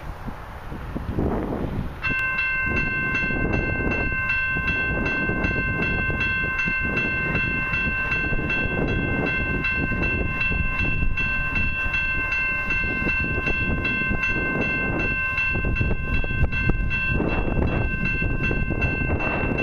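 Railway grade-crossing warning bell starts ringing suddenly about two seconds in and keeps up an even, rapid ringing, set off by a train approaching the crossing. Wind rumbles on the microphone underneath.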